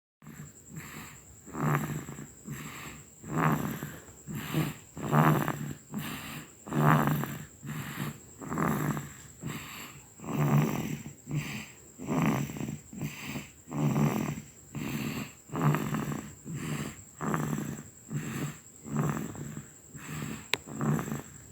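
Baby boy snoring in deep sleep: a short, rough snore with each quick breath, about one a second, in an even rhythm.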